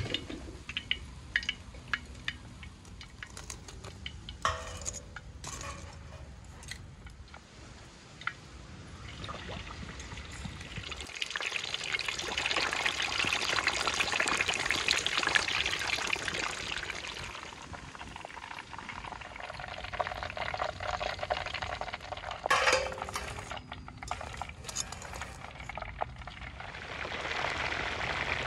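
A whole chicken in a wire frying basket deep-frying in hot oil: the oil bubbles and sizzles hard, building about ten seconds in, loudest in the middle and rising again near the end. Early on, sharp metal clinks from the wire basket and tongs.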